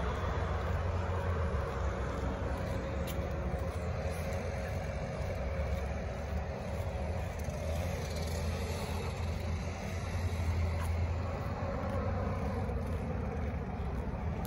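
Steady low rumble of motor vehicles and road noise, with no distinct events.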